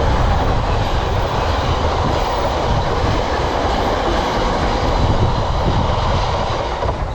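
Diesel freight train passing through the station: a loud, steady rumble of locomotive engine and wagon wheels that eases off near the end.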